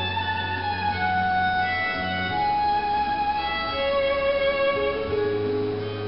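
Instrumental break in an enka song's backing track, with no singing: a slow lead melody of long held notes over sustained bass notes, the bass changing pitch about every second or two.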